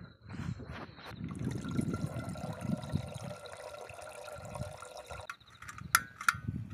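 Water poured into a kettle for a few seconds, stopping suddenly; then two sharp clicks from a portable butane gas stove's igniter as the burner is lit.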